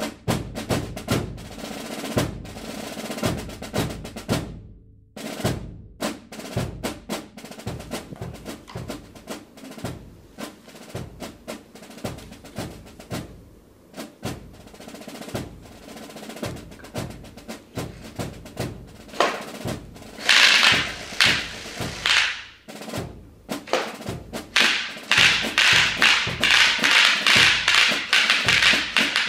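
Bubble wrap popping in rapid runs as it is pulled through the rollers of a homemade cardboard bubble-wrap machine gun. The pops turn into a dense crackle about two-thirds of the way in and again near the end.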